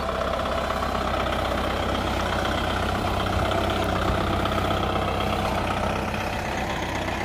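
Kubota tractor's diesel engine running steadily as the tractor drives by, towing a sprayer tank trailer.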